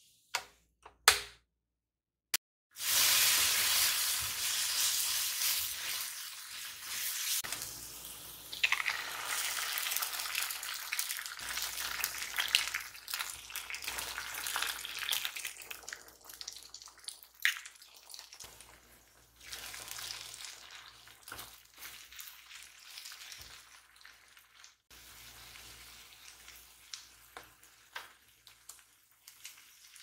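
A waffle maker's lid clicking shut, a few sharp clicks in the first two seconds. Then a pan of menemen (chopped tomatoes, green peppers and eggs) sizzling loudly in oil. The sizzle starts suddenly, stays strong for about a dozen seconds and then slowly dies down, with occasional light taps.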